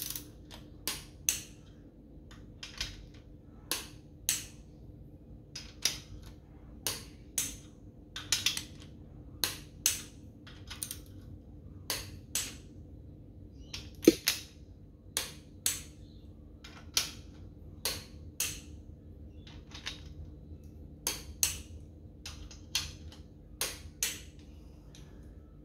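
Sharp metallic clicks from a torque wrench and its ratchet as the main bearing cap bolts of a Holden 253 V8 block are tightened on a first pass to about 30 foot-pounds. The clicks come every second or so, often in pairs, with one louder click about halfway through, over a faint steady hum.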